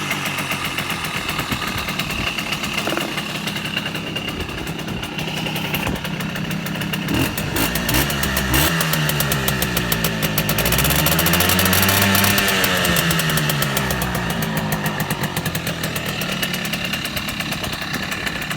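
Simson S51's small two-stroke engine running, its pitch climbing to a peak about twelve seconds in and easing back down.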